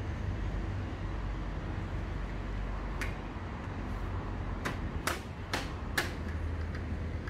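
Tools and parts clicking while a motorcycle headlight's mounting nuts are fitted: about five sharp clicks, one about three seconds in and four more in quick succession a little later, over a steady low hum.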